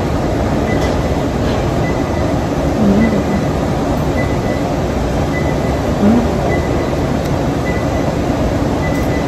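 Steady rushing noise of a restaurant kitchen's extractor hood and ventilation, with a faint high tone coming and going.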